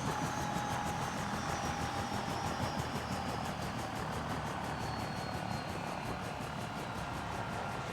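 Ambulance helicopter's rotor blades chopping with a fast, even beat over a steady turbine whine that slowly falls in pitch.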